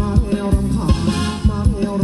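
A band playing upbeat Thai ramwong dance music with a steady beat.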